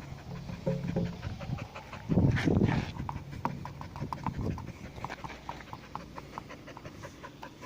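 Dog panting quickly and regularly, worn out from playing ball, with a louder, deeper sound about two seconds in.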